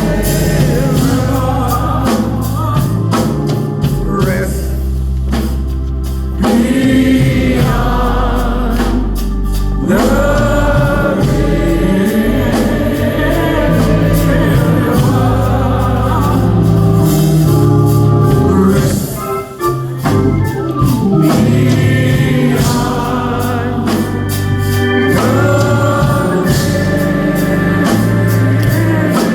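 Gospel music: a choir singing over organ with a strong bass.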